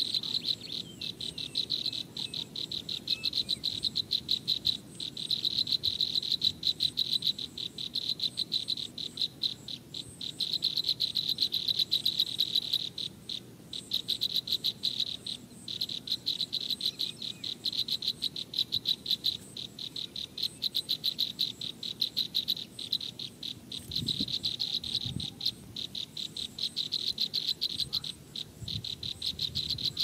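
Insects trilling: a rapid, evenly pulsed high-pitched trill in runs of a few seconds with brief breaks, over a faint low rumble. A couple of low thumps sound near the end.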